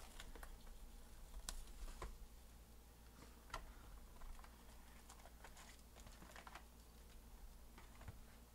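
Faint scattered clicks and taps of hands handling a cardboard trading-card hobby box, opening it and taking out the foil packs.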